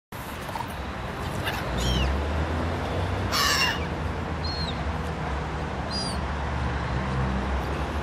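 Black-headed gulls calling: a handful of short, harsh calls that drop in pitch, the loudest about three and a half seconds in, over a steady low rumble.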